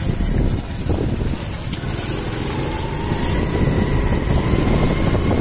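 Small motorcycle engine running while riding, with wind rumbling on the microphone; a faint whine climbs slowly in pitch over the second half as it speeds up.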